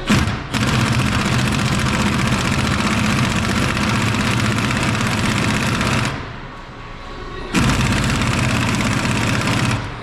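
Pneumatic impact wrench rattling in two long bursts, the first about six seconds and the second about two seconds, with a short pause between them.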